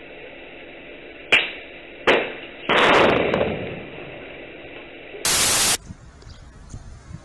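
Two sharp bangs, then a longer and louder blast that dies away over about a second: a grenade going off, heard through hissy security-camera audio. Near the end a short burst of static cuts in.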